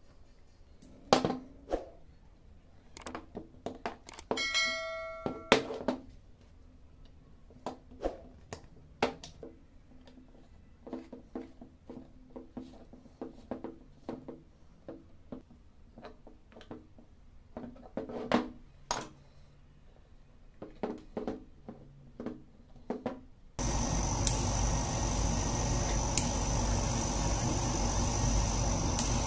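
Metal parts of an air stapler clicking and knocking as it is reassembled by hand with a hex key, with one short ringing metallic clink about four seconds in. About twenty-three seconds in the sound cuts suddenly to a laser cutter running, a loud steady hum and hiss with held whining tones.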